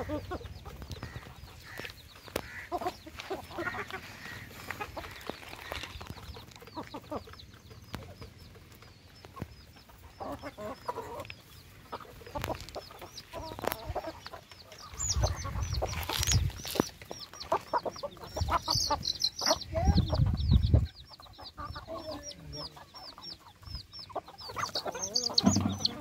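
Hens and roosters clucking while they feed, with many sharp taps as they peck at grain and, from about the middle on, a run of rapid high chick peeps. A low rumble comes twice near the middle and is the loudest thing heard.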